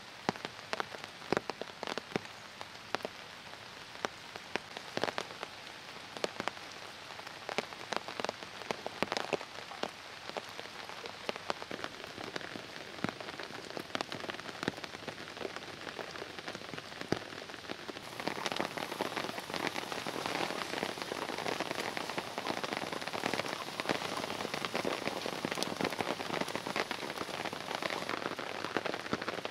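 Heavy rain falling on a tarp and the forest floor: a steady hiss full of sharp single drop ticks. About eighteen seconds in, the rain sound becomes denser and louder.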